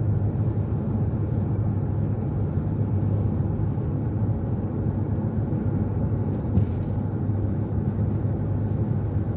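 Steady low drone of engine and road noise inside the cab of a Hyundai Starex van cruising at highway speed.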